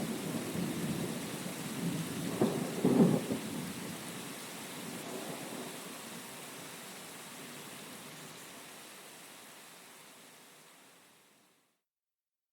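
Heavy rain with thunder rumbling, two sharp cracks of thunder about two and a half and three seconds in, then the rumble dies away as the rain fades out to silence near the end.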